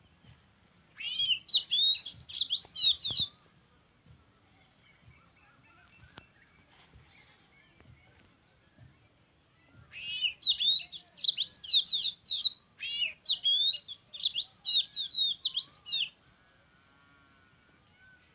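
A songbird singing in two spells of fast, warbling whistled notes, a short one of about two seconds near the start and a longer one of about six seconds in the second half.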